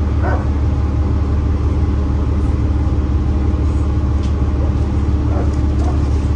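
Cabin drone of a New Flyer Xcelsior XDE60 hybrid articulated bus, with its Cummins ISL9 diesel and Allison H 50 EP hybrid drive running. It is a steady low hum with several even tones.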